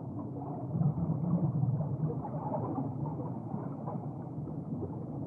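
Low, muffled underwater rumble with nothing in the higher range.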